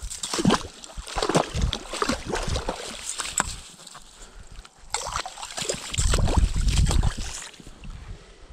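Slotted ice skimmer scooping slush and ice chips out of a freshly drilled ice-fishing hole: irregular sloshing and scraping strokes. A heavy low rumble comes about six seconds in and lasts over a second.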